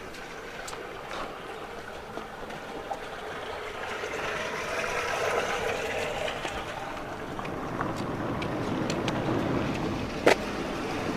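A vehicle passing by: a rushing noise that swells and sinks in pitch as it goes by. There is one sharp click about ten seconds in.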